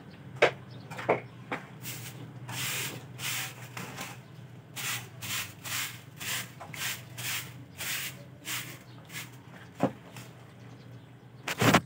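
Broom sweeping wet ground in a run of short swishes, a little under two a second, with a few sharp knocks near the start and a loud clatter near the end.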